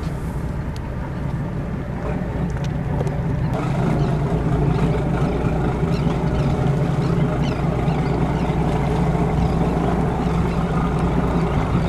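Inboard engines of a 34-foot Luhrs convertible sportfishing boat running steadily at low speed as it motors out of its slip, getting a little louder about four seconds in.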